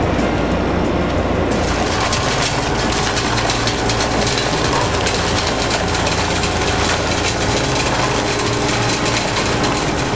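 Concrete pump truck running steadily during a foundation pour, with workers' rakes and tools working the wet concrete; a brighter hiss comes in about a second and a half in.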